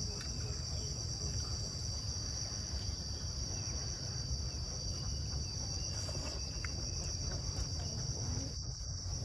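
Steady chorus of insects, an unbroken high-pitched drone, over a low rumble, with a few faint clicks.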